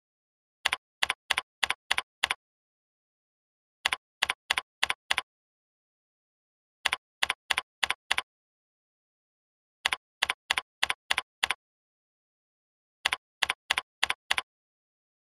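Computer keyboard keystrokes: five quick runs of about six key clicks each, each run typing one number of digits and a decimal point followed by Enter. The runs come about every three seconds.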